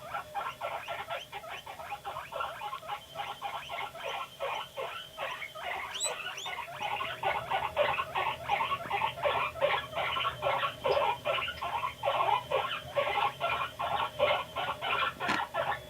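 Guinea pig making a rapid series of short squeaky calls, several a second, a little louder in the second half.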